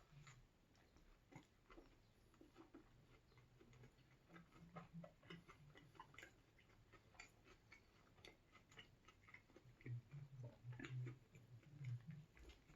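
Near silence with faint chewing: scattered small mouth clicks and a few soft low thuds of eating, a little stronger about ten seconds in.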